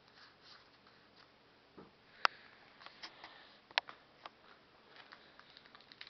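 Baseball trading cards being handled, with light rustling, faint ticks and two sharp clicks, one about two seconds in and one nearly four seconds in.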